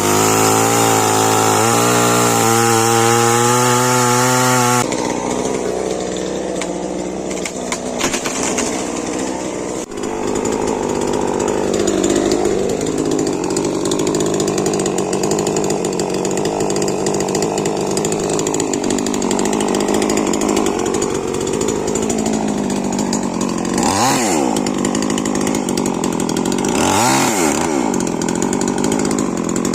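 For about the first five seconds there is a louder sound of steady tones that change pitch in steps. Then a Stihl MS 881 two-stroke chainsaw runs continuously through wood. Near the end its engine speed dips and climbs back three times as the throttle is eased and reopened.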